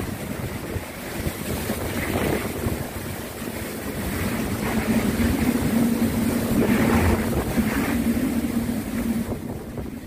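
Typhoon wind gusting hard and buffeting the microphone, with a steady low hum joining about halfway through.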